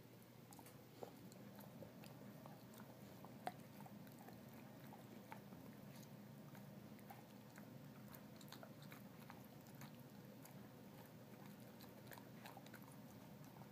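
An Old English bulldog chewing a Busy Bone dog chew: faint, irregular gnawing with scattered crunching clicks.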